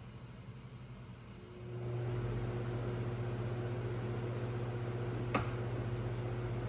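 A steady motor hum starts about two seconds in and keeps running, with one sharp click near the end.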